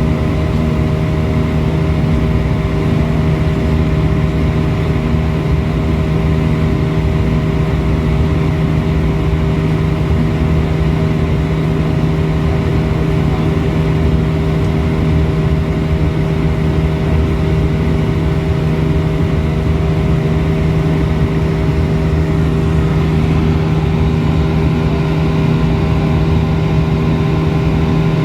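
Steady cabin drone of an Airbus A320-200 in flight, heard inside the passenger cabin: a constant rush of engine and airflow noise with a low steady hum and a few held tones.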